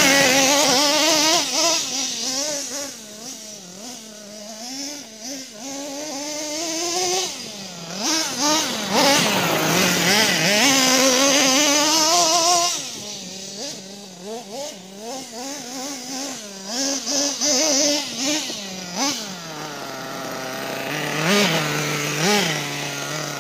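Kyosho Mad Armour radio-controlled monster truck's engine revving up and down hard as it drives and jumps, louder at the start and again for a few seconds in the middle, fainter as the truck runs farther off. Near the end it settles to a steady idle with two quick throttle blips.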